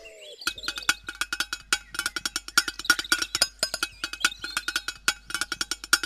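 Background music with a fast, clicking percussive beat like wood blocks.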